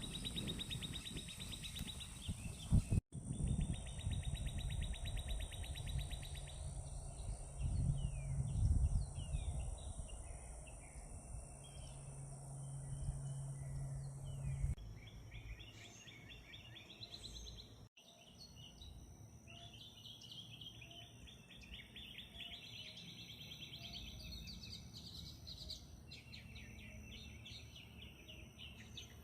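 Several songbirds singing, with rapid trills and many short chirps overlapping, over a low background rumble that fades out about halfway through. The sound cuts off abruptly twice, a few seconds in and again around the middle.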